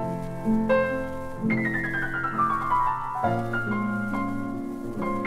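Piano intro of a 1953 R&B vocal-group record played from a 78 rpm disc, with a descending run of notes about a second and a half in.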